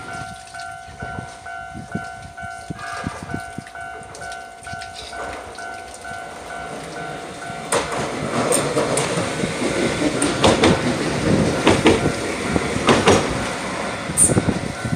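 Japanese level-crossing warning bell ringing in a steady, evenly repeated ding. About eight seconds in, a Hiroden tram rolls past, louder, its wheels clacking over the rail joints.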